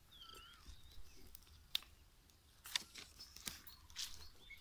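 Faint, scattered crunching clicks of dry twigs and stubble, about three sharp ones through the middle, with faint bird chirps near the start.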